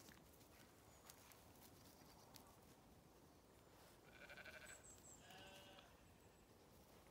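Sheep bleating faintly, two short quavering calls about a second apart, the second lower in pitch.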